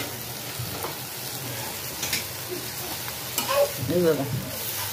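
Sliced spiny gourd sizzling in hot oil in a metal kadhai while a spatula stirs it, with scrapes and knocks of the spatula against the pan. A short wavering pitched sound comes near the end.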